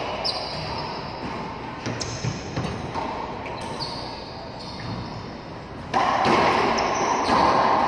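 Racquetball rally: a racquetball struck by racquets and cracking off the court walls several times, each strike ringing in the enclosed hard-walled court. A louder, noisier stretch begins about six seconds in.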